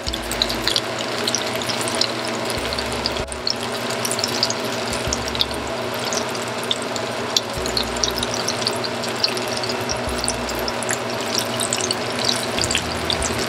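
Onion pakodi (gram-flour fritters) deep-frying in hot oil in a pan: a steady sizzle full of quick crackling pops.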